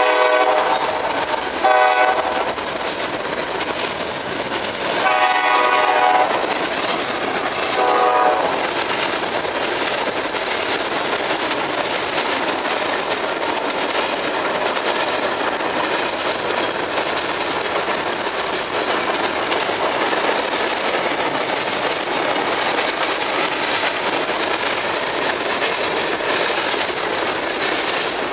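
The air horn of a CSX GE AC44CW diesel locomotive sounds several blasts: one ending just as the sound begins, a short one about 2 seconds in, a longer one around 5 seconds and a short one near 8 seconds. After the horn stops, the train's cars roll past with a steady rumble and clickety-clack of wheels on rail.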